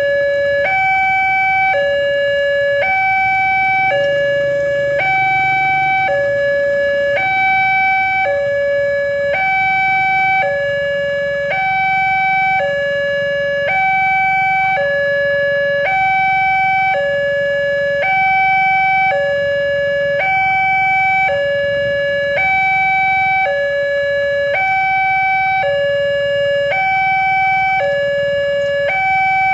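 Railway level-crossing warning alarm from the horn loudspeaker on the crossing signal: an electronic two-tone signal alternating evenly between a lower and a higher note, about two-thirds of a second each, steady and loud. It sounds with the barrier down and the red lights flashing, warning that a train is approaching.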